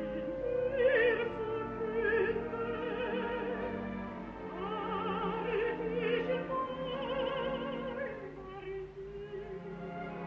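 Female operatic singing with a wide vibrato, held and swelling phrases over a sustained orchestral accompaniment.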